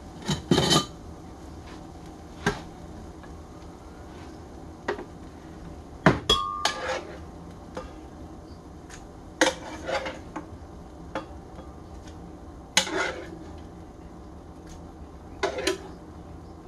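Kitchen cookware and utensils being handled: scattered knocks and clinks, a second or two apart, one about six seconds in ringing briefly.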